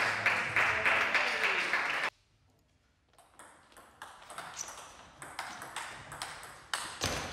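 Table tennis rally: the ball clicks sharply off the bats and bounces on the table, about two or three hits a second. It follows a loud burst of noise in the first two seconds that cuts off abruptly, then a second of near silence.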